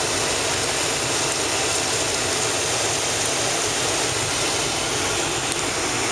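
Steady airliner cabin noise inside a Boeing 747-400 in cruise: an even rush of airflow and engine noise that holds level throughout.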